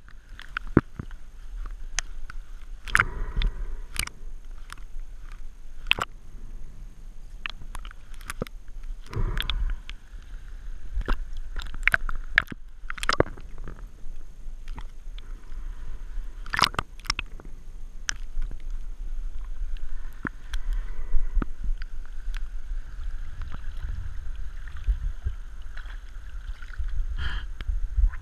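Underwater scuba-dive sound heard through a GoPro Hero 3's waterproof housing worn under a neoprene hood: a muffled, steady low rumble with scattered clicks and knocks, and bursts of bubbling every several seconds, typical of the diver's regulator exhaling.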